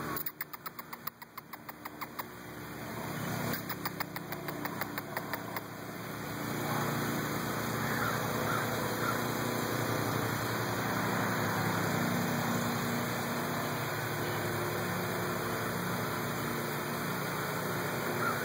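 Two quick runs of rapid, evenly spaced clicks, then from about six seconds in a steady engine-like hum with a hiss over it sets in and keeps running.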